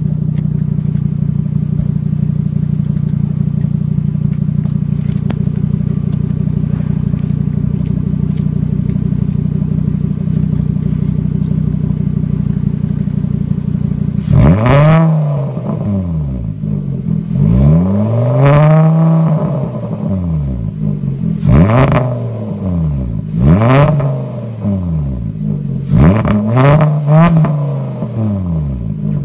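2011 Volkswagen Jetta Mk6's 2.5-litre inline-five with a loud aftermarket exhaust, heard at the tailpipe. It idles steadily on a cold start, then from about halfway is revved about six times, the pitch climbing and falling back each time.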